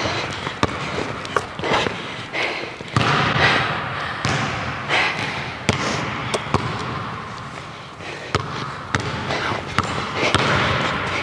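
A basketball being dribbled on a hardwood gym floor: a string of sharp bounces at an uneven pace, with scuffing between them.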